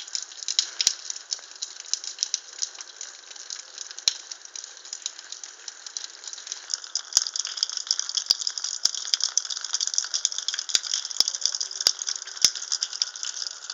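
Thawing meltwater dripping from icicles onto ice and shards, a dense irregular ticking of drops with sharper single clicks now and then, more of them in the second half.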